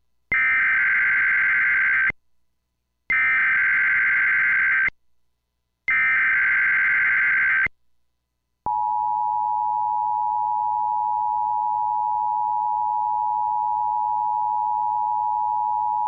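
Emergency Alert System SAME header, three bursts of buzzing two-tone digital data about two seconds each, carrying the coded tornado watch. About nine seconds in, the NOAA Weather Radio 1050 Hz warning alarm tone starts, one steady pitch.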